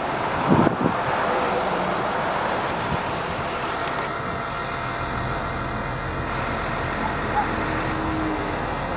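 Engine of a GMC C7500 digger derrick truck running steadily.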